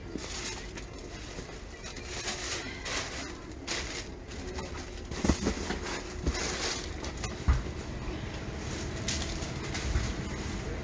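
Open-air street market ambience: scattered knocks and rustles, with sharper thumps about halfway through and near the end, and a few low bird calls.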